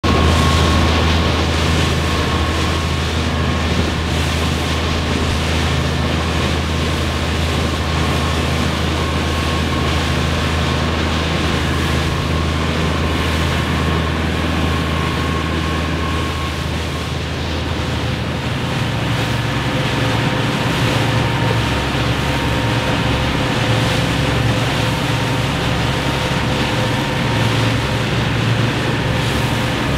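A motorboat's engine running steadily under way, with wind and rushing water over it. A little past halfway the engine hum shifts to a higher pitch.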